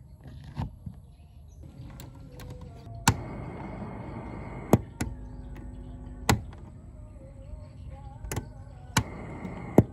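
Radio static from a just-powered-on Polytron radio cassette deck: a steady hiss with faint wavering tones, as between FM stations, begins about three seconds in. Sharp clicks are scattered through it.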